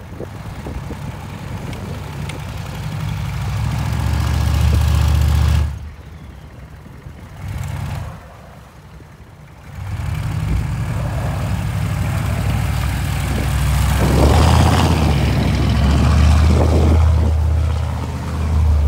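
1993 K1500 pickup's 6.5-litre turbo-diesel V8 working as the truck pushes snow with its plow. The engine builds louder over the first few seconds, falls away about six seconds in with a short rise near eight seconds, then runs loud again from about ten seconds on.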